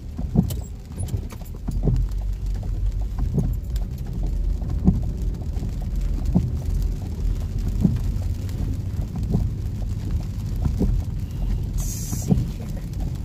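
Car windshield wipers knocking at the end of each sweep, about once every second and a half, over the low rumble of a car's interior as it drives in the rain.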